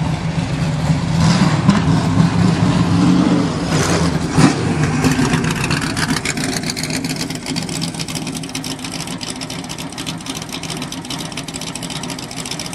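Classic sports-racing car's engine running at idle, blipped up a little a few times in the first five seconds, then settling to a steady idle.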